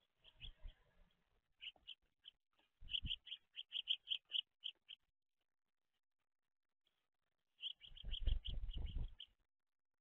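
Small songbirds at a seed-tray feeder chirping. They give quick runs of short, high chirps, about five a second, in two bouts, the second one near the end. Low thumps and rustling sit underneath, close to the microphone.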